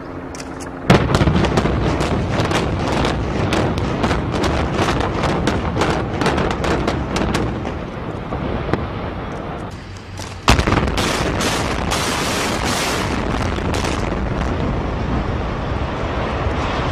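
Building implosion: a rapid string of demolition charges cracks off about a second in, and the noise of the large building collapsing carries on under the cracks. A second implosion starts with a sharp blast about ten seconds in, followed by the long noise of another building coming down.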